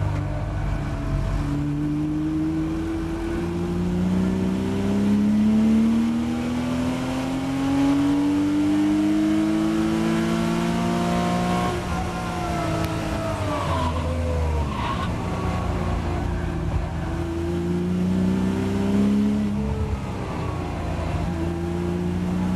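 Porsche Boxster race car's flat-six engine heard from inside the cockpit: it accelerates hard through the gears with rising pitch for about ten seconds, then drops in stepped downshifts under braking. It pulls up again briefly and slows once more near the end.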